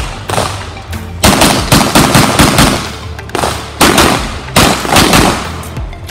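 Rapid pistol fire: sharp shots in quick pairs and longer strings, with brief pauses between strings.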